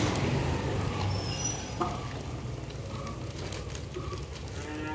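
A motor vehicle's engine running on the road and fading steadily as it moves away, with a single click about two seconds in.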